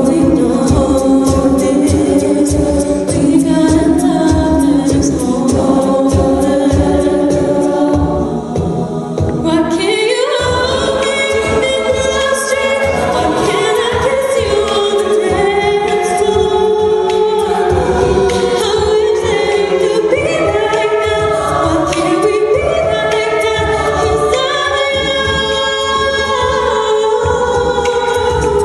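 All-female collegiate a cappella group singing: a soloist on microphone over backing voices, with a steady beat kept by vocal percussion. About ten seconds in the voices swoop upward into a fuller, higher section.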